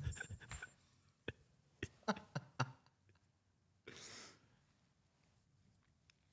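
A few faint, short clicks in quick succession, then a short breathy exhale about four seconds in.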